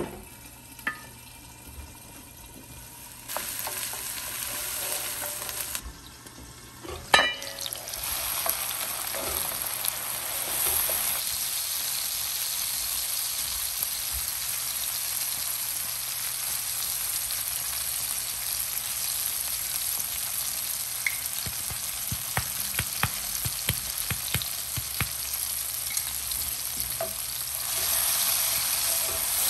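Chopped onion and tomato sizzling steadily in hot oil in a frying pan while being stirred with a wooden spoon, with scattered clicks of the spoon against the pan. One sharp knock about seven seconds in; the sizzling is quieter in the first few seconds.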